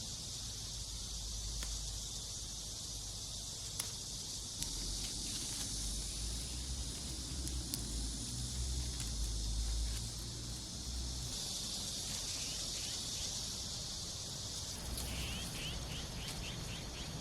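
Steady, high-pitched chorus of insects, with a low rumble underneath and a short run of quick chirps near the end.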